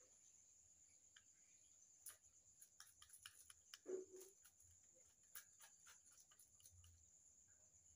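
Kitchen knife scraping the scales off a climbing perch on a wooden board: a run of quick, faint scratchy clicks, with one soft knock about four seconds in.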